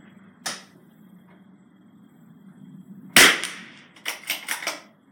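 .22lr rifle shot about three seconds in, the loudest sound, with a short ring-out. A quieter sharp crack comes about half a second in, and a quick run of four or five clicks follows the shot.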